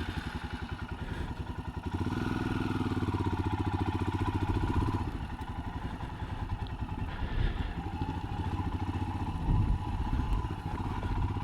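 Motorcycle engine running under way, a fast steady pulsing that grows louder about two seconds in as the throttle opens.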